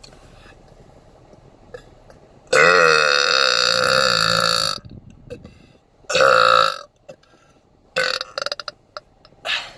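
A woman belching loudly, over and over: one long burp lasting about two seconds, a shorter one a little later, then a quick run of short burps and one more near the end.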